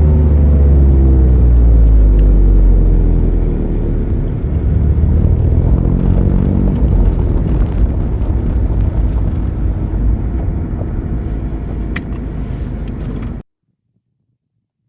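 Mazda ND Roadster (MX-5) engine heard from onboard, its pitch falling over the first few seconds as the revs drop, then rising again as it accelerates, over a steady rumble of road noise. The sound cuts off abruptly near the end.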